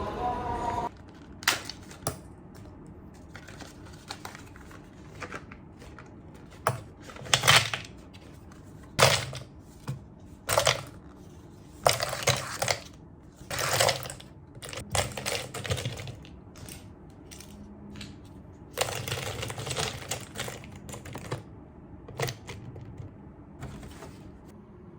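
Rustling and tapping of packaging being handled, in a series of short bursts with small clicks between them.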